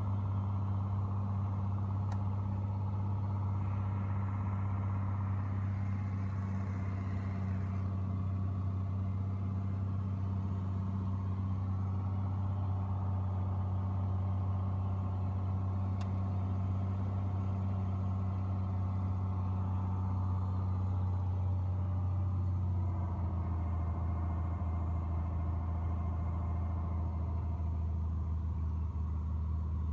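The Lycoming O-540 six-cylinder engine and propeller of a Piper Dakota running steadily in flight, heard inside the cabin. The engine note drops slightly about two-thirds of the way through.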